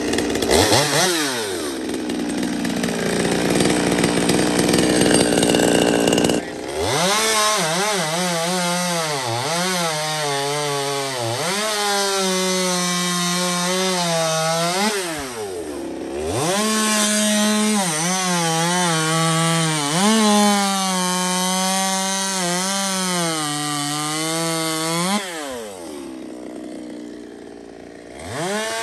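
Ported, custom-built Stihl MS200T two-stroke top-handle chainsaw running at high revs and cutting wood. The throttle is let off several times, so the engine drops toward idle and revs back up, and it idles lower near the end. It is a good-running saw, rebuilt with new crank seals after a used set left it leaking air.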